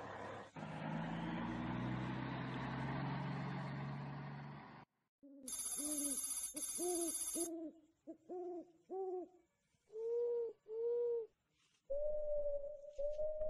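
A steady rushing noise with a low drone that cuts off suddenly, followed by owl hooting: a run of short hoots that rise and fall in pitch, mostly in pairs, with a shrill high chirring behind the first of them, ending on one longer held hoot.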